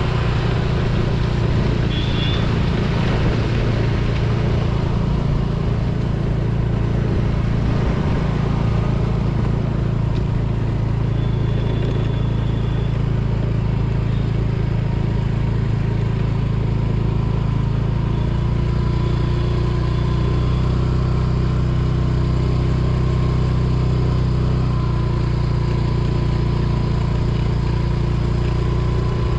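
TVS Jupiter scooter's single-cylinder four-stroke engine running steadily under way, with rushing wind and road noise. Its pitch shifts slightly partway through.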